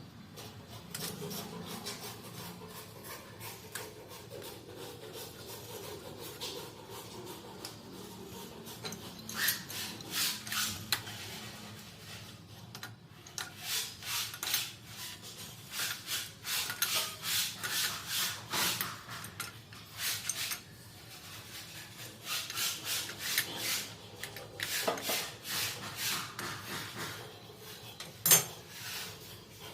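Repeated rubbing and scraping strokes from hand work on plumbing fittings, coming in runs of a few strokes a second, with one sharp knock near the end.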